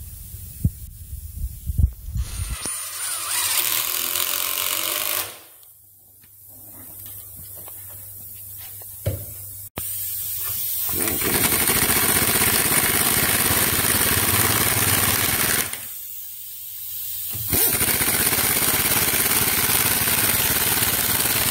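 Pneumatic impact wrench running in long bursts, about three of them, driving lag bolts through a steel angle bracket into oak timber. A few knocks of hand work come before the first burst.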